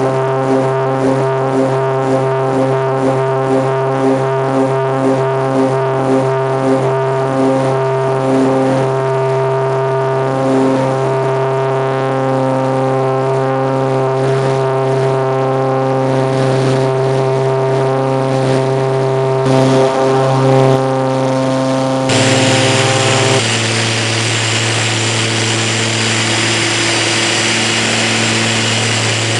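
Cabin drone of a Cessna 402's twin piston engines and propellers, heard from inside the cabin: a steady hum made of many tones, with a wah-wah beat between the two engines that slows as they fall into step. About 22 seconds in, the rushing hiss suddenly grows louder, and a moment later the engine tones drop slightly, as with a change in power or propeller setting.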